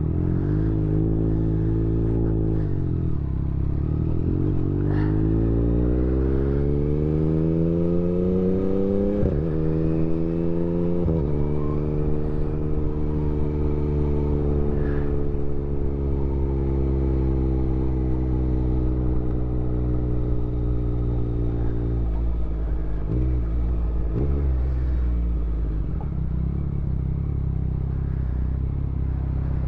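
Motorcycle engine heard from the rider's seat, with wind noise. It slows, then pulls away, rising in pitch through two quick gear changes, holds a steady cruise, then drops off with a few short throttle blips and settles to a low steady note near the end.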